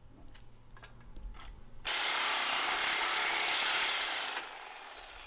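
A power cutting tool bites into a seized steel trailer bolt: a few light clicks, then about two seconds in a loud, even cutting noise for about two and a half seconds. The cutting then stops and the tool winds down with a falling whine.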